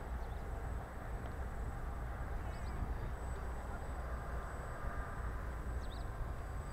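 Wind rumbling on the microphone, over a faint steady drone from the model flying boat's motors as it taxis on the water. Short bird chirps come twice, once near the middle and once near the end.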